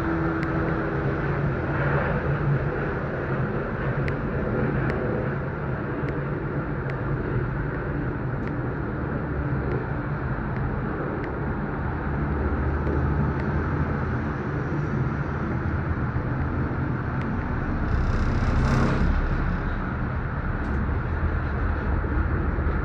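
Disney Skyliner gondola cabin in motion, heard from inside: a steady rumble and hum as it rides the cable, with a few faint ticks and a brief louder rush about three-quarters of the way through.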